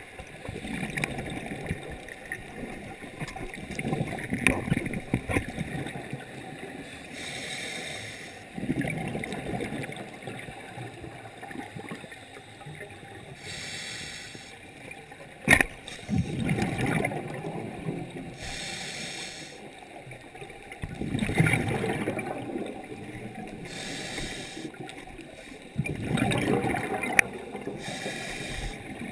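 Scuba diver breathing through a regulator underwater: a hissing inhalation about every five to six seconds, each followed by a gurgling rush of exhaled bubbles. One sharp click about fifteen seconds in.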